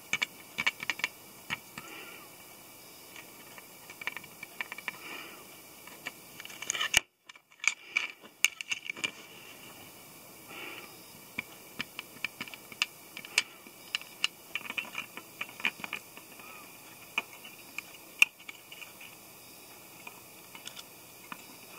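Faint scattered clicks and ticks of hand soldering on a brass sheet-metal model body: the electric soldering iron and solder wire touching the brass seam as it heats. There is a brief drop to silence about seven seconds in.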